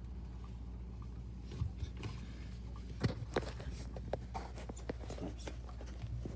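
Phone handling noise: irregular clicks and knocks as the phone is moved about, starting a second and a half in and busiest near the middle, over a steady low hum.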